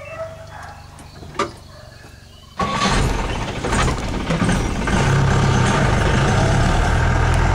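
Safari jeep's engine running low and steady, with a single click a little over a second in; about two and a half seconds in, a sudden, much louder rush of engine and road noise sets in and holds steady.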